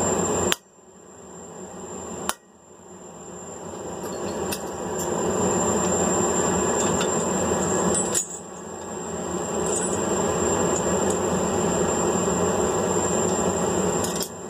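Hammer blows on a hand punch driving holes through hot mild-steel flat bar on an anvil: a few sharp, widely spaced strikes, about half a second in, near two seconds in and about eight seconds in, over a steady rushing noise.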